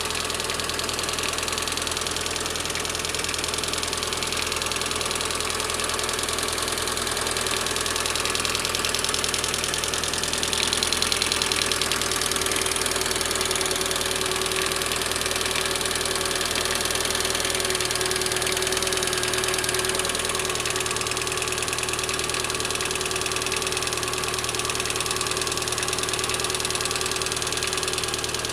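Lada VAZ-21124 16-valve four-cylinder engine running steadily, with the tapping knock of its hydraulic lifters (hydraulic valve lash compensators) heard over the engine note.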